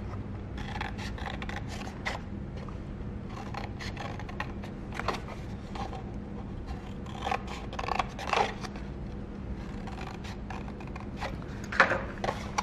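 Scissors snipping short cuts into a folded sheet of paper along its fold lines, a series of brief snips mixed with paper rustling as the sheet is turned and handled.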